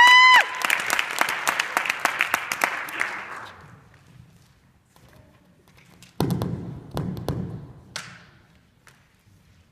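Audience applause with a shrill cheer right at the start, dying away over about three seconds. After a quiet pause come a few dull thumps and taps, about six seconds in and again about a second later.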